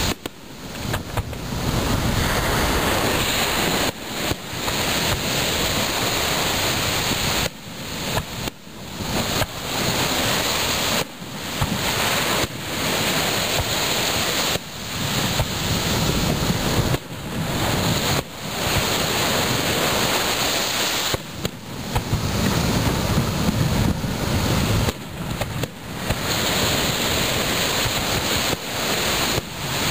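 Aerial fireworks bursting again and again over a steady rush of wind on the microphone and breaking surf. Each burst is followed by a sudden drop in level that slowly swells back.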